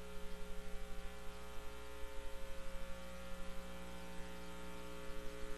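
Steady electrical hum, a low buzz made of several steady tones, with a faint quick pulsing in its level.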